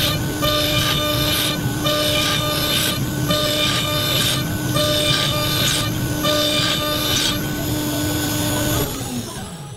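CNC router spindle whining while its end mill cuts into a walnut block, the cutting noise swelling about once a second as the bit passes back and forth. Near the end the whine drops in pitch and fades as the spindle winds down.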